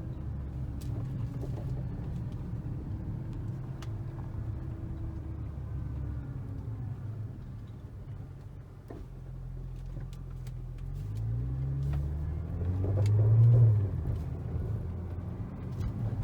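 2012 Audi S4 B8's supercharged 3.0-litre V6 running as the car moves slowly, then rising in pitch as it accelerates about two-thirds of the way through, loudest near the end. Short clicks and knocks come through over the engine, which fit the creaking and clunking from the front end on slow steering and bumpy roads, a noise whose cause is not yet found.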